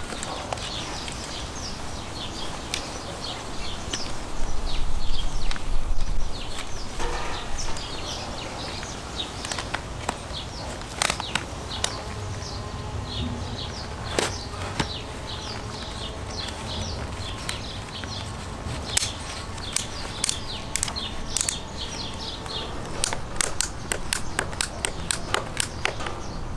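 Inline skate being laced and its straps and ratchet buckles fastened, with sharp clicks scattered throughout, while small birds chirp in the background. A low rumble swells for a couple of seconds about four seconds in.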